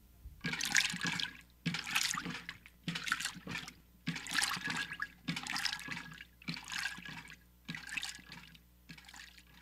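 A run of eight short bursts of hissing, water-like noise, about one a second.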